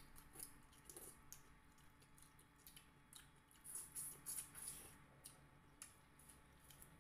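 Faint eating sounds of two people eating fish and rice with their hands: soft wet chewing and lip smacks with scattered small clicks, thickest about four seconds in.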